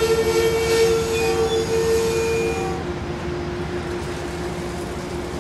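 Amtrak passenger train rolling past close by, a steady rumble with sustained mid-pitched tones over it; about three seconds in one tone and the highest hiss drop out and the sound eases a little.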